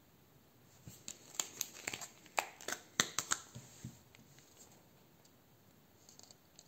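Thin clear plastic wax-melt pot being handled and opened: a run of sharp plastic crackles and clicks for about three seconds, then a few faint ticks near the end.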